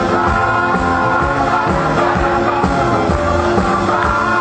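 Pop band playing live: a steady drum beat under held chords and bass.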